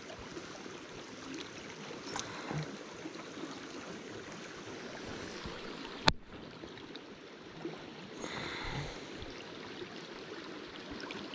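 Small mountain creek running steadily, with a single sharp click about six seconds in and a short, louder rush of water about eight seconds in.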